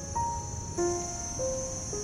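Background music of slow, sustained keyboard notes, a new note about every half second, over a steady high-pitched insect drone.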